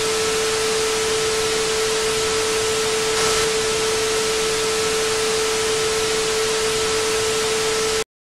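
Loud, steady static hiss with a single steady tone over it, cutting off suddenly near the end.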